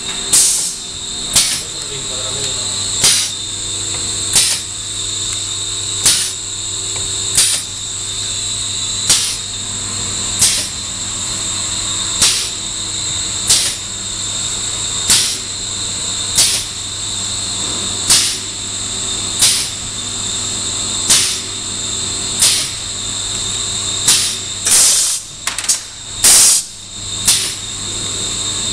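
Errepi Vittoria 1600 automatic label-roll rewinding machine running: a steady motor hum and high whine, with a sharp mechanical click about every second and a half. Near the end come two loud bursts of hissing.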